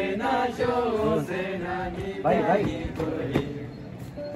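A group of voices singing a chant-like Hyolmo folk song together, the singing fading lower in the last second or so. A single sharp knock sounds about three and a half seconds in.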